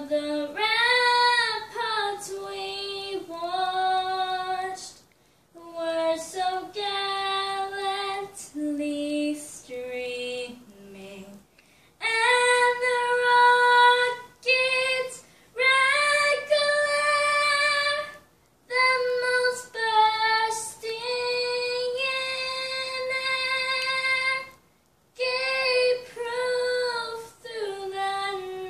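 A girl of about nine singing a national anthem solo and unaccompanied, in phrases of a few seconds with held notes, broken by short pauses for breath.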